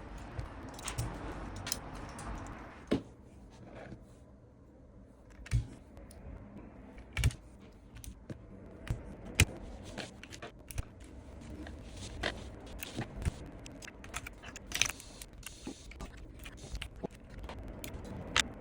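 Hands working on a Keychron Q1 Pro mechanical keyboard: irregular clicks and knocks of plastic keycaps and switches being handled, with light scrapes.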